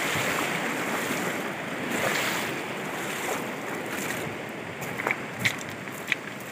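Rushing river water, a steady wash of noise that eases a little after a few seconds, with a few short sharp knocks near the end.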